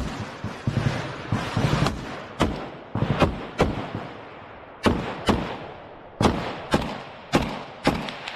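Rifle gunfire in a trench firefight: a string of single shots at irregular spacing, roughly one to two a second with short pauses, each cracking sharply and trailing off in a short echo.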